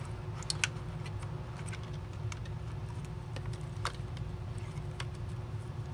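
Faint, scattered light clicks of a Windsor Sensor S12 vacuum's main circuit board and its ribbon cable and wires being handled and worked loose from the plastic housing, over a steady low hum.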